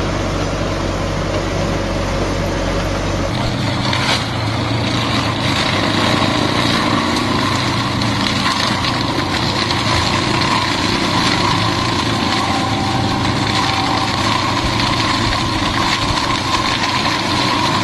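Engine of heavy farm machinery running steadily. The sound changes abruptly about three seconds in, the deep rumble giving way to a higher, more even running noise.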